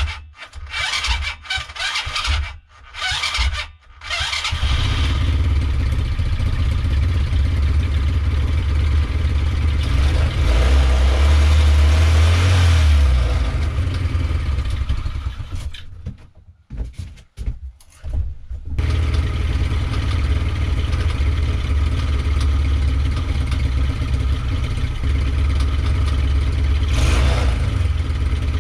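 Tao Tao 110cc Coolster mini ATV's single-cylinder engine being cranked by its electric starter in short stuttering bursts, then catching and running, with a louder rev partway through. About two-thirds of the way in it stumbles and is cranked again, then restarts and runs steadily, rising briefly near the end. Its carb is not yet tuned and it has been bogging on the throttle.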